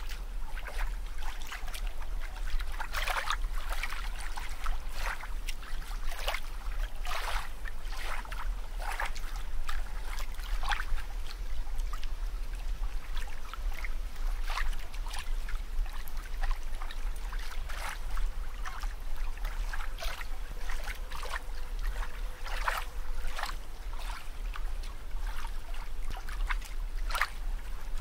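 Water sound effect: irregular small splashes and bubbling, one or two a second, over a steady deep hum.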